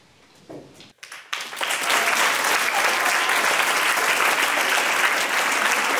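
A hall full of schoolchildren applauding: after about a second of hush, steady clapping breaks out all at once and keeps going.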